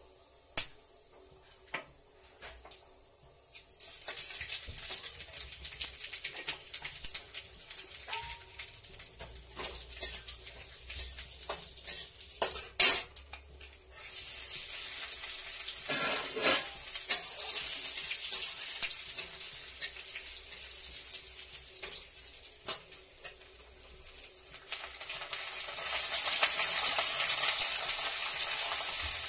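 Hot oil sizzling in a steel kadai as spices fry. The sizzle starts a few seconds in, grows louder about halfway when chopped garlic and ginger drop in, and again near the end when onions are added. Sharp clinks of a steel plate and spatula against the pan come through at intervals.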